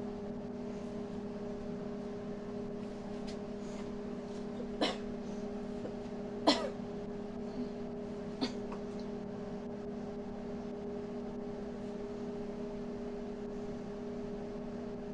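Microwave oven running with a steady hum while heating noodles in water. Three sharp clicks stand out over it about five, six and a half, and eight and a half seconds in, the middle one the loudest.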